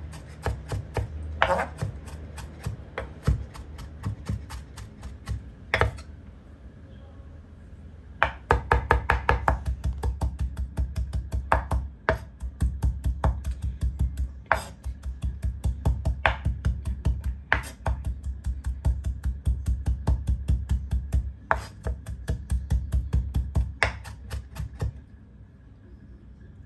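Chef's knife mincing fresh ginger on a bamboo cutting board: rapid, steady chopping strokes. The chopping is lighter and broken at first, then runs fast and even from about eight seconds in, and stops shortly before the end.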